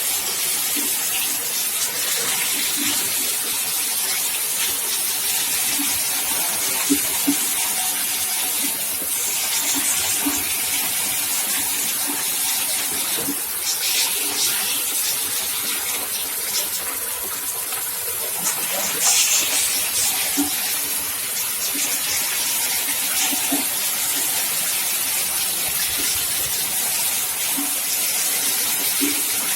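Candlenut cracking machine running steadily, a constant hiss-like rush of shells and nuts churning through it, with scattered sharp clicks of hard nuts.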